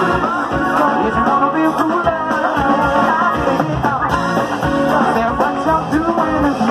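Live band playing through a PA: electric guitars over a steady drum beat, with a singer's voice.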